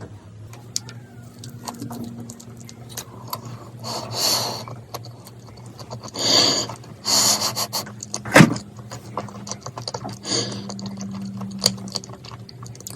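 Close-up handling noises: a few rustling swishes and a sharp click about eight seconds in, over a low steady hum.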